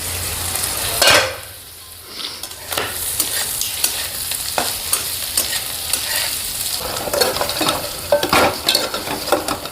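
Food frying in a pan while being stirred: a steady sizzle with repeated scrapes and clicks of the spoon against the pan, one louder stroke about a second in.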